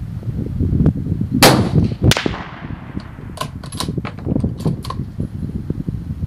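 A single rifle shot from a Savage .223 Remington bolt-action rifle about a second and a half in, ringing off over about a second. About three to five seconds in comes a quick run of sharp metallic clicks, over a low wind rumble on the microphone.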